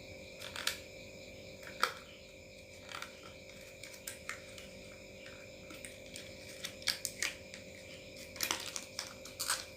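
Scattered light clicks and taps of hands working a laptop's RAM module out of its slot, spreading its spring retaining clips and lifting the stick free.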